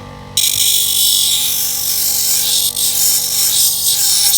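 Vikhr electric grinder running at speed with a steady motor whine; about half a second in, its abrasive wheel bites into a workpiece and a loud, harsh grinding hiss runs for about four seconds, then stops abruptly as the work comes off while the motor keeps spinning.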